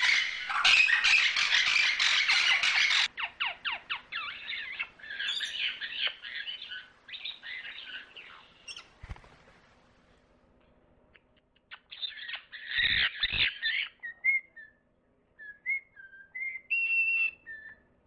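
Rainbow lorikeet's shrill, dense chattering screeches, which cut off suddenly about three seconds in. Harsh rasping bird calls follow in bursts, then a brief lull, another loud burst of calls, and a few short whistled notes near the end.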